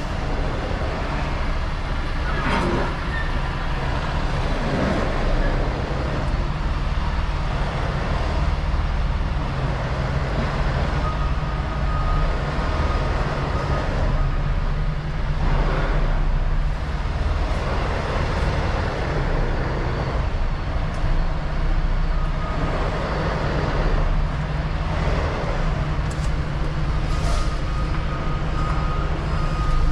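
Semi-truck diesel engine running as the tractor-trailer moves off slowly, heard from inside the cab as a steady low rumble. A faint high steady tone comes in twice.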